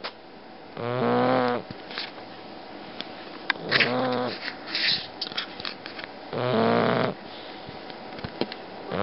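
Bulldog snoring in its sleep: three pitched snores, each under a second long, about two and a half seconds apart, with short faint snuffles between them.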